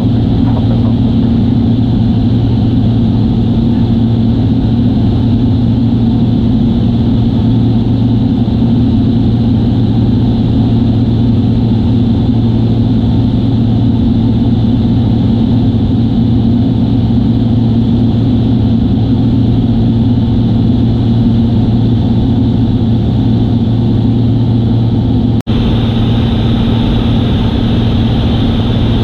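Single-engine light aircraft's piston engine and propeller running at a steady cruise, a constant low drone heard inside the cockpit. The sound briefly cuts out once near the end.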